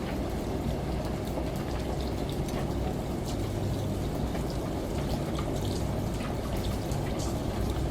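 Layered water ambience: steady rushing and pattering of shower and rain with scattered sharp drip ticks, over a constant low hum of a washing machine.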